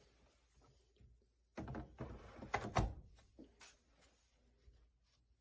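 A few hard plastic knocks and clunks about one and a half to three seconds in, then lighter clicks: EGO 56V batteries and their rapid charger being handled on a stone countertop.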